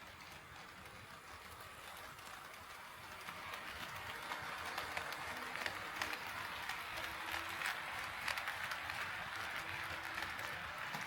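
HO scale model train running along the track, its wheels rattling and clicking over the rail joints, growing louder as it comes close and easing off near the end.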